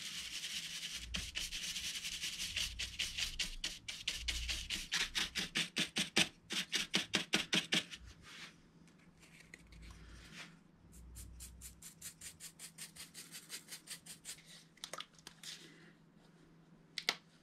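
Stiff paintbrush bristles scrubbing back and forth through acrylic paint on a paper plate, several quick strokes a second, loading and working off paint for dry brushing. The strokes grow softer about halfway through, and a couple of sharp clicks come near the end.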